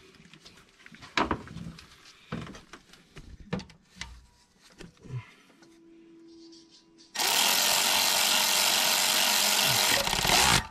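Light metal clicks and knocks as a socket is fitted onto the rocker arm bolts of an L76 V8 cylinder head. About seven seconds in, a power driver runs steadily for about three and a half seconds, driving a rocker arm bolt down, and stops suddenly.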